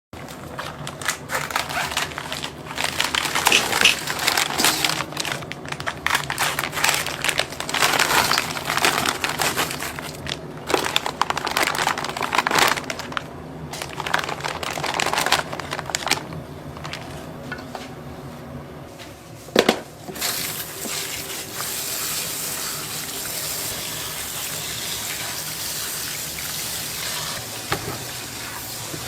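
Food-preparation handling sounds: irregular clattering, crinkling and knocks. About two-thirds of the way through, a sharp knock is followed by a steady rushing hiss that carries on.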